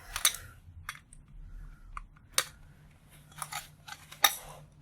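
Scattered sharp clicks and light taps of small metal parts being handled and worked loose from a brass valve by hand, about half a dozen at irregular spacing.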